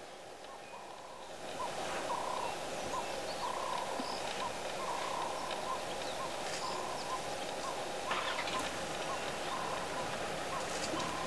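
Outdoor bush ambience with a bird repeating a short call about twice a second over a steady hiss, which gets louder about a second and a half in.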